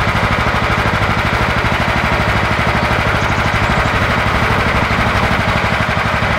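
John Deere 180 lawn tractor engine running steadily with a fast, even firing beat, freshly cold-started off a jump-started battery.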